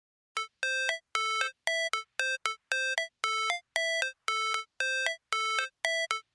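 A melody of short electronic notes, about two a second, stepping between a few pitches, starting about a third of a second in after silence.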